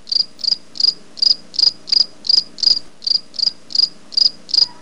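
Cricket chirping sound effect: a loud, regular chirp about three times a second, of the kind laid over an awkward silent moment for comic effect.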